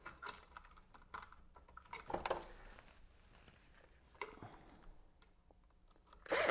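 Small clicks and taps of hands handling a duplex receptacle and its wire loops at the terminal screws, followed by a quiet stretch. Just before the end a cordless drill starts up, driving a terminal screw down.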